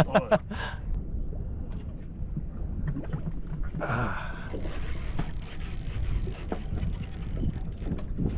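Wind rumbling on the microphone and water slapping against a small boat's hull, with short bits of a man's voice at the start and about four seconds in. From then on a fainter high hiss with fine rapid ticking comes in.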